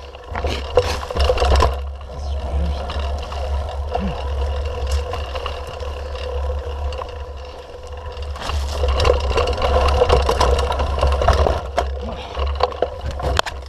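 Mountain bike ridden fast down a dirt forest trail: a steady low rumble under the clatter and rattle of the bike jolting over rough ground, with scrapes as brush and palm fronds brush past. Rougher and louder stretches come near the start and again in the last few seconds.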